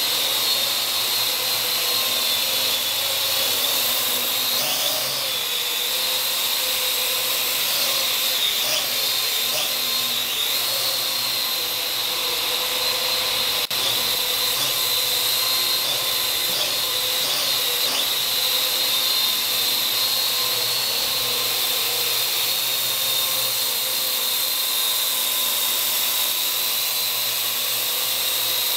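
Parrot AR.Drone quadcopter in flight, its four small electric motors and propellers giving a steady high-pitched whine. The pitch wavers briefly a few times as the drone manoeuvres.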